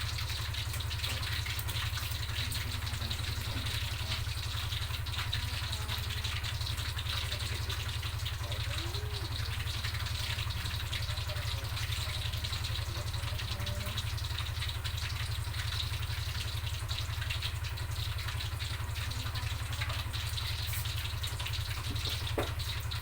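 Steady hiss with a low hum underneath, unbroken throughout: kitchen noise while cooking on a stove.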